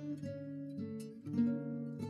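Acoustic guitar music, plucked notes and strummed chords, with the loudest chord a little past the middle.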